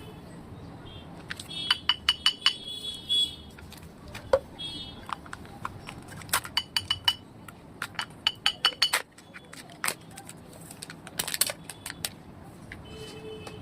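Irregular series of sharp clicks and clinks, some in quick clusters, from candies and their hard plastic packaging being handled and knocked together.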